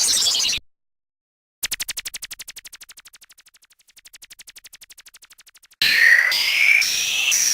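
A run of separate synthetic sound effects. A falling electronic sweep cuts off about half a second in. After a short gap comes a rapid even train of clicks that fades away and then repeats more faintly. Near the end, loud whistling electronic tones glide up and down.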